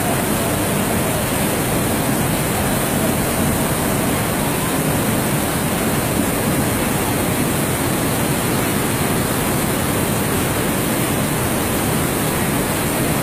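Muddy floodwater rushing down a street in a torrent and surging around parked vehicles: a steady, unbroken rush of water.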